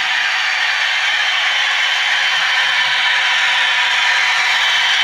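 TT-scale model train running on the layout, a steady rattling rolling noise from the wheels on the track.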